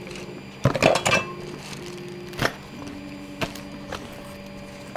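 A small cardboard box and packaging being handled: a burst of rustling and knocks about a second in, then a few single knocks.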